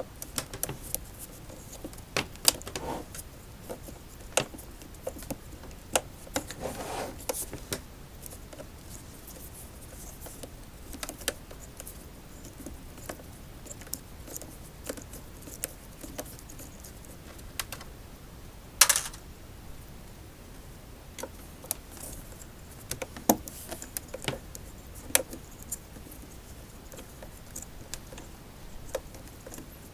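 Irregular light clicks and clinks of small metal parts and tools being handled while an electric unicycle is taken apart, with one sharper click about nineteen seconds in.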